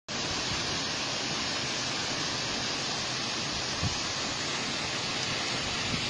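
Tall waterfall plunging down a rock face: a steady, unbroken rush of falling water, with a brief low bump about four seconds in.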